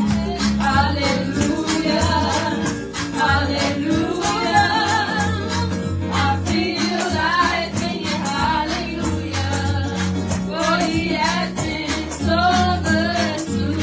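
Two women singing a gospel song into microphones over instrumental accompaniment, with a steady bass line and a regular beat.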